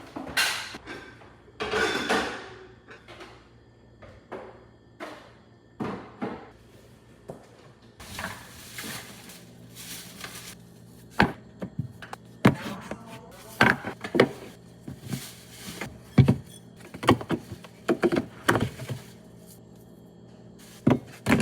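Household clatter: a run of separate knocks and thunks as objects are handled and set down, several of them sharp and loud in the second half. A steady low hum comes in about eight seconds in.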